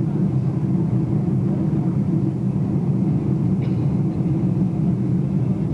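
Steady low rumble of a Boeing 747-200 in flight, its engines and airflow heard from inside the passenger cabin.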